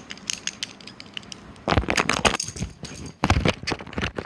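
Butterfly knife (balisong) being flipped open and closed: a quick run of sharp metallic clicks, then two louder stretches of rapid clacking and rattling as the handles swing and snap together.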